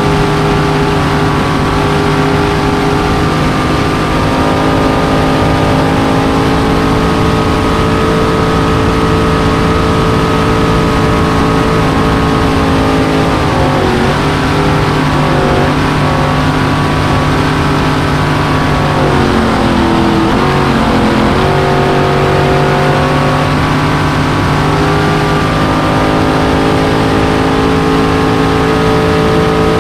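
Supercharged, fuel-injected 427 Chevy big-block V8 of a circle-racing boat running hard at race speed, heard onboard over a loud rush of wind and water. Twice its pitch drops and wavers, about halfway through and again a little later, then climbs back to a steady high pitch.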